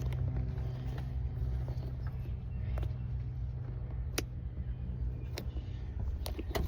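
A steady low hum with a few short, sharp clicks and taps scattered through it, as a toy package is handled and opened.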